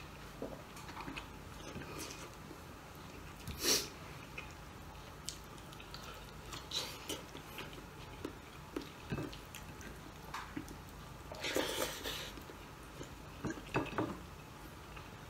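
Close eating sounds from a person eating rice and boiled beef shank by hand: chewing and lip smacking with scattered small clicks. There is a louder, longer noisy burst about four seconds in and another near twelve seconds.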